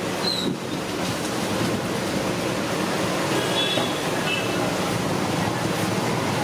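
Hot oil sizzling steadily in a large wok as masala vadas deep-fry.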